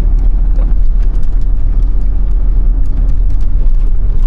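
Steady low drone of a truck in motion heard from inside the cab, engine and road noise together, with scattered light ticks throughout.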